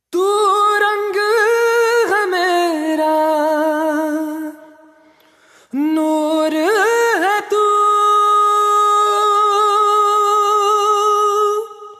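Soundtrack music: a solo voice singing a wordless, drawn-out melody with wavering held notes and slides, in two long phrases with a short break about five seconds in and little or no accompaniment.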